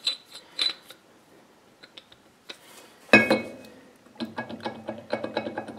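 Worn steel tailstock screw and barrel of a South Bend lathe: a few light metal clicks, then one loud metal clank about three seconds in, then from about four seconds a fast, continuous run of ringing clicks as the screw is turned in its worn nut.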